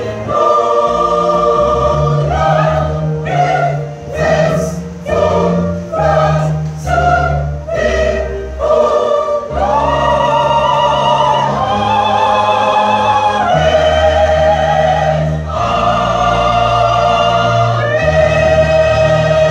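Mixed choir of women's and men's voices singing a sacred choral piece: a run of short, separated chords, then long held chords that change every couple of seconds.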